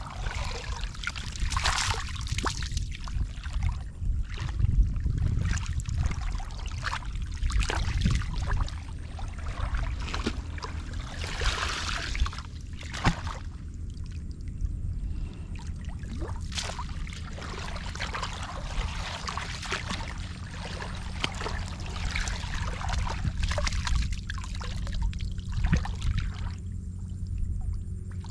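Shallow muddy water splashing and trickling in irregular bursts as hands work through it, over a steady low rumble.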